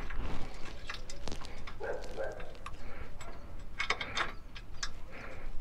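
Light metallic clicks and knocks, scattered and irregular, from hands handling and fitting parts of a motorcycle jack, with a small cluster of clicks about four seconds in.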